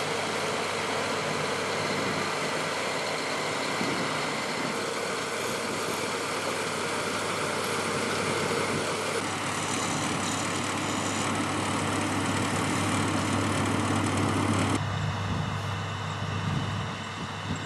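Diesel engine of heavy farm machinery running steadily under a wash of mechanical noise. About 15 seconds in, the sound changes abruptly and the higher hiss drops away.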